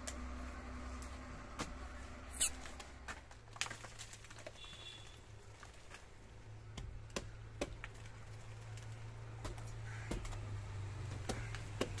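Irregular sharp knocks and clinks, a few every couple of seconds, the sharpest about two and a half seconds in: a climber's spikes biting into a dead coconut trunk and the metal hardware of his positioning rope and belt as he starts up the tree. Under them runs a low steady hum that drops in and shifts pitch about three and a half seconds in.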